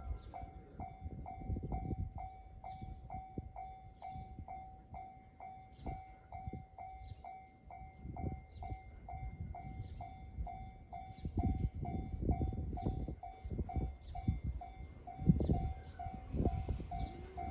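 Japanese level-crossing warning bell ringing steadily, about two strikes a second, over intermittent low rumbling from a passing train.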